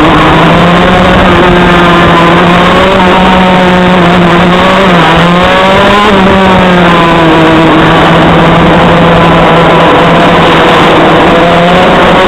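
TM KZ10C 125 cc two-stroke shifter kart engine running hard on track, heard loud from the kart itself. Its pitch holds fairly steady, dips briefly about five seconds in, then climbs again.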